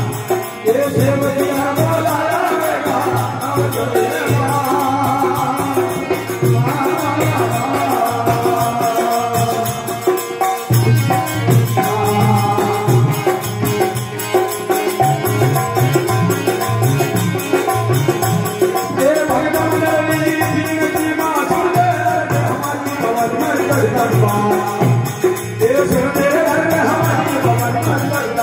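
Live Rajasthani devotional bhajan: a man singing into a microphone to harmonium accompaniment, with a steady percussion beat underneath.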